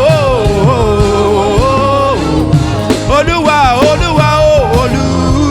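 Yoruba gospel worship music: a lead singer holds long, wavering, gliding notes over a live band with steady bass and drums.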